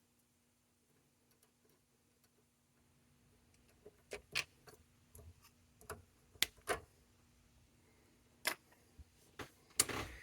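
Scattered light clicks and taps of small metal parts and hand tools being handled during bench disassembly. They are sparse at first and come more often and louder from about four seconds in, over a faint steady hum.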